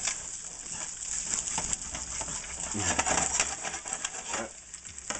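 Eggs frying in hot oil in a nonstick skillet: a steady sizzle full of small crackles and pops, with light scrapes of a plastic spatula working under the eggs, which are sticking a little.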